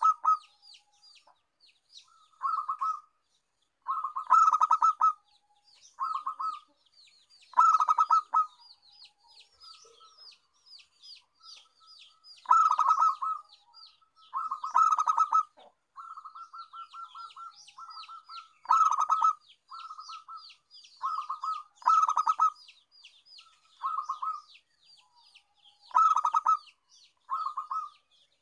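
Zebra dove (perkutut) cooing: short phrases of rapid, clipped notes repeated every second or two, with a pause of a few seconds in the middle. It is a lure song of the kind played to set other zebra doves singing. A thin, high twittering runs behind it.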